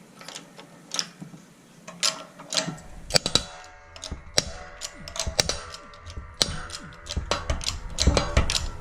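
Metal clicking and creaking as a 6-ton shop press is worked to force the old bearings out of a Lexus RX350 tensioner pulley. About three seconds in a low rumble joins and the clicks come thicker, busiest near the end.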